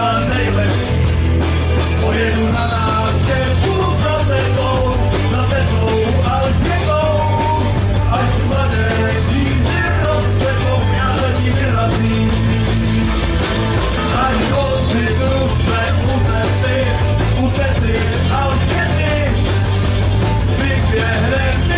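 Live rock band playing loud and steady: electric guitars over drums, with a man singing.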